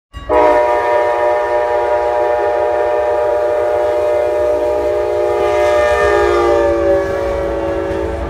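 Amtrak locomotive's Nathan K5LA five-chime air horn held in one long, continuous blast as the train approaches, over the low rumble of the train. The chord drops in pitch about six seconds in as the locomotive passes.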